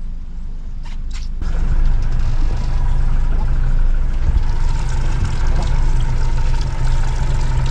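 Boat engine idling with a steady hum, heard from on board, preceded about a second in by a few short clicks.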